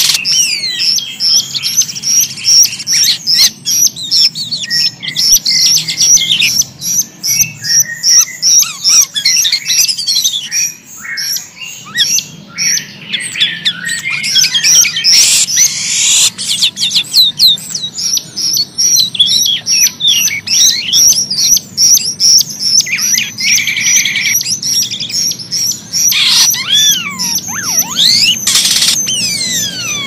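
Caged starlings, a jalak rio-rio (grosbeak starling) and a jalak kapas, singing in full song: a dense, unbroken stream of rapid high chirps mixed with curved whistling glides.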